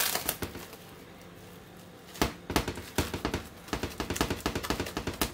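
Cling film being pressed down over a glass dish and around its rim, crinkling in quick crackles. A short rustle at the start, then a dense run of crackling from about two seconds in.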